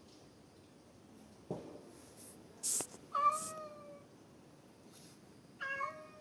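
Domestic cat meowing twice, short slightly falling meows about three seconds in and again near the end. A light knock and brief hissy rustles come before the first meow.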